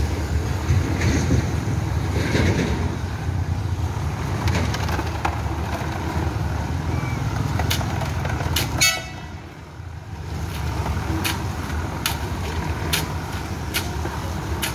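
Small electric drum concrete mixer running with a steady low rumble, along with passing road traffic. From about halfway, a run of sharp knocks sounds as a rod strikes the drum, and a short horn toot comes about nine seconds in.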